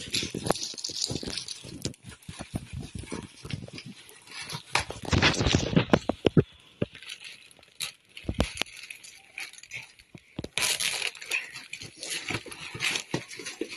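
Plastic mailing bag crinkling and rustling as it is handled and torn open, in irregular crackles with busier stretches about five seconds in and again near the end.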